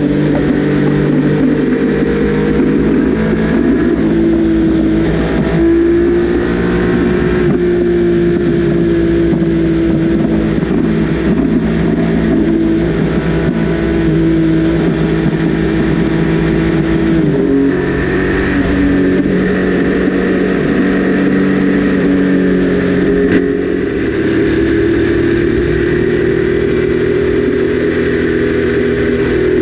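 Triumph Daytona 955i's inline three-cylinder engine running steadily at road speed, with wind and road noise rushing past. The engine note shifts to a different pitch about two-thirds of the way through.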